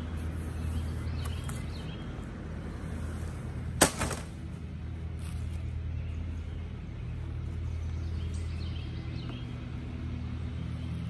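A boxed electric bike being lifted out of its cardboard shipping carton: cardboard and plastic wrapping scrape and rustle, with one sharp knock about four seconds in. A steady low hum runs underneath.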